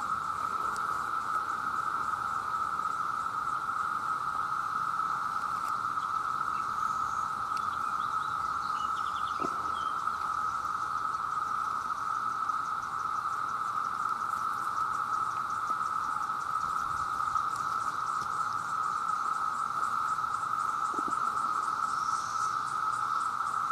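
Chorus of many male cicadas calling for mates, merged into one steady, unbroken high drone.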